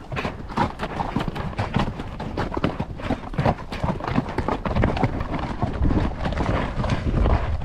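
Horse hooves striking rocky ground in an irregular run of steps as horses climb a steep trail. A low rumble grows stronger in the last couple of seconds.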